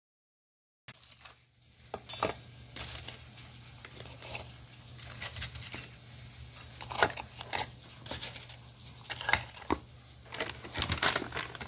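Frozen pollack fillets handled and laid into a stainless steel bowl: scattered light taps and clinks against the metal, starting about a second in, over a steady low hum.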